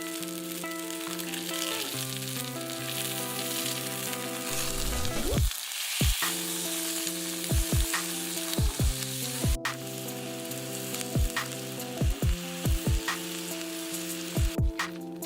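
Food sizzling and frying in a pan, a steady hiss, under background music.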